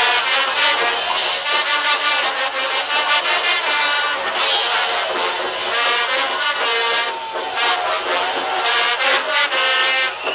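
A brass band playing parade dance music with a steady beat.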